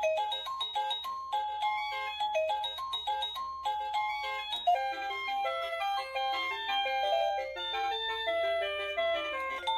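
Wireless doorbell receiver playing one of its electronic chime tunes: a quick melody of bright, bell-like notes, several a second.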